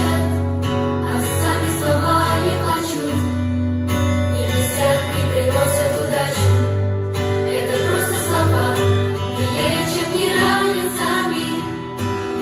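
Pop song with singing over a backing track that has a steady bass line.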